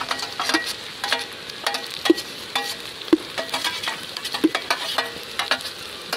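Browned onion, chilli and garlic sizzling in hot oil in a cooking pot, with a spoon scraping and knocking against the pot in irregular strokes as the mixture is stirred.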